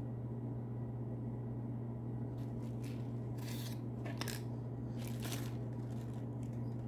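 A few short scrapes and rustles as a fixed-blade knife and its sheath are handled, over a steady low hum.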